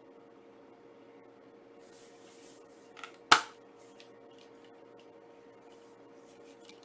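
Handling of a Blu-ray steelbook case: light rustling, then one sharp click a little over three seconds in, with a smaller click just before it and a few faint ticks after.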